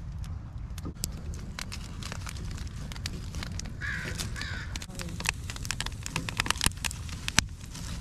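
Wood fire crackling and popping in a steel park grill, with many sharp pops scattered throughout. Two short crow caws about halfway through.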